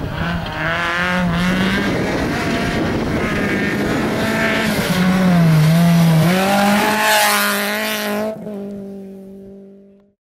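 Rally car at speed on a gravel stage, its engine note rising and falling as the driver works the throttle, with a hiss of tyres and flung gravel. It is loudest as the car goes by about six seconds in, then fades as it drives away, and the sound cuts out near the end.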